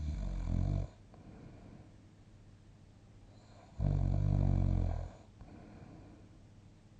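Snoring during sleep: a short snore right at the start and a longer one of over a second in the middle, with quiet breathing between.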